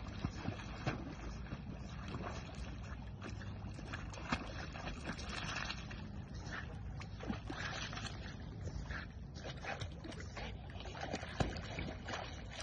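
Water sloshing and lapping with small splashes as dogs paddle through a pond, a steady watery noise with scattered light clicks.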